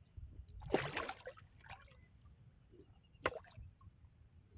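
Water splashing and dripping, with a short splash about a second in and a single sharp knock a little past the middle.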